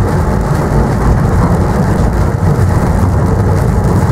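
Steady low rumble of a train running, heard from inside the driver's cab.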